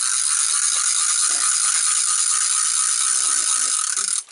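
Fishing reel's ratchet clicker buzzing in a fast, steady run as line is wound quickly, cutting off abruptly just before the end.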